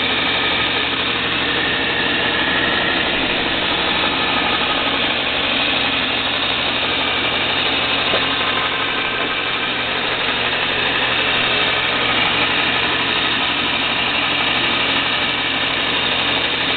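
ENCO combination 6-inch belt and 9-inch disc sander running steadily under power: an even electric-motor hum under the whir of the spinning belt and disc.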